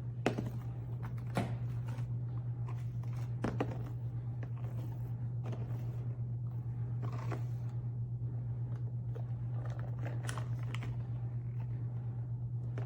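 Small plastic fidget toy and its packaging being handled: scattered clicks, taps and crinkles, over a steady low hum.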